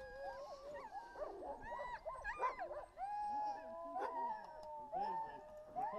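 A yard of harnessed sled dogs howling and whining together, many overlapping rising and falling calls, with a few sharp barks or yips among them.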